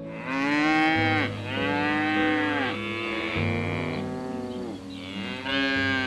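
Cattle mooing: several long moos in a row, each rising then falling in pitch.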